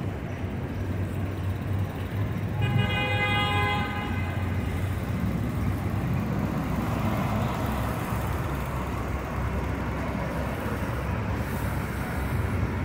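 City street traffic running steadily, with a vehicle horn honking once for just over a second a few seconds in.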